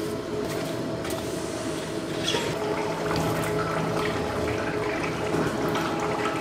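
Steady hum of food-factory machinery, holding a few low tones, over an even rushing noise, with a few faint light ticks.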